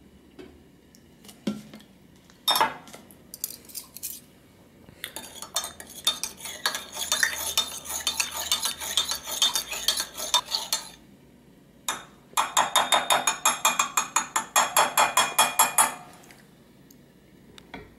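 Metal spoon stirring milk and vinegar in a glass measuring jug, clinking against the glass. A few separate taps come first, then a long spell of stirring, a short pause, and a second spell of fast, even clinks at about five or six a second.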